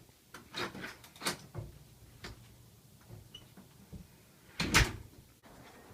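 A door being handled: scattered knocks and clicks, with a louder thud about three-quarters of the way through.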